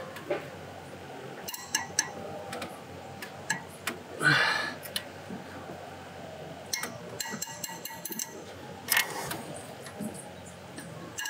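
Socket wrench on cylinder head bolts: metallic clicks and clinks of the ratchet and socket as the bolts are loosened, with a run of quick ratchet clicks late on and two louder short sharp noises, the first about four seconds in.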